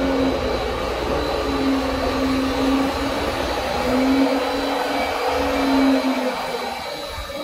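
Steady running of the milk-cooling and ventilation machinery in a dairy's chiller room: a constant mechanical whir with a thin high whine over it. A low rumble under it drops away about six and a half seconds in.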